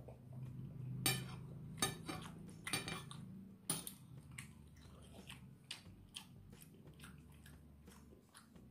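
Metal spoon clinking and scraping against a plate while scooping rice and soto, with a few sharp clinks in the first four seconds and softer ones after, and chewing between scoops.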